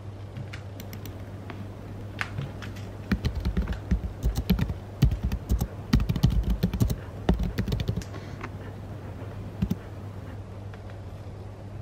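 Typing on a computer keyboard: a run of quick key clicks from about two seconds in to about eight seconds, over a steady low hum.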